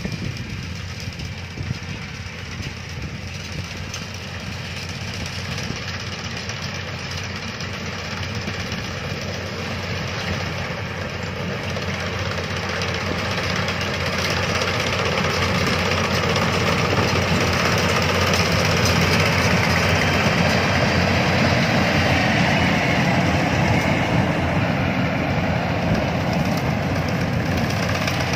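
Yanmar rice combine harvester running as it cuts, its diesel engine and threshing machinery getting steadily louder as it draws near, loudest in the second half.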